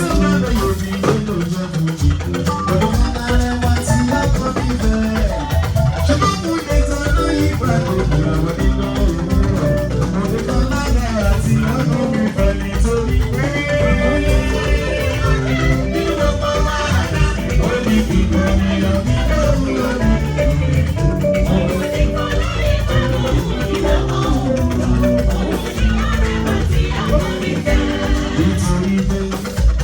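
Live band music with a steady dance beat: guitar, drums and shaken percussion.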